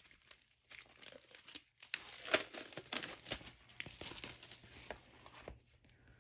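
Crinkling and rustling of plastic wrapping and paper as a K-pop album is handled and opened, in irregular bursts of crackles that grow busier about two seconds in and die away near the end.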